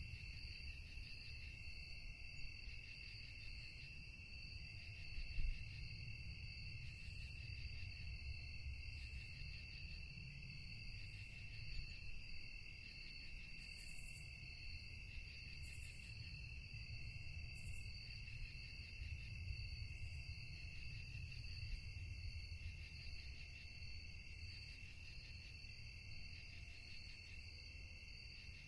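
Crickets chirping in a continuous, finely pulsing trill over a low background rumble, with a few brief higher chirps around the middle.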